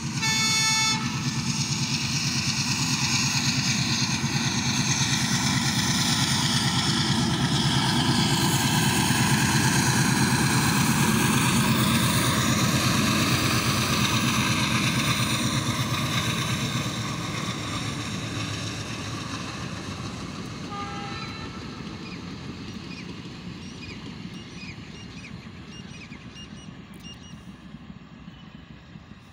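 Passenger train horn sounding once for about a second. Then the train runs past: the sound of the train and its coaches grows to its loudest about ten seconds in and fades steadily as it moves away.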